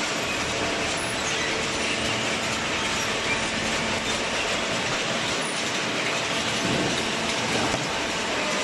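Industrial carton baling machine running: a steady mechanical clatter over a low hum.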